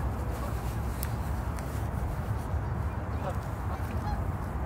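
Steady low wind noise on the microphone, with a few light clicks about a second in and short, faint calls from the geese and ducks a little after three and four seconds in.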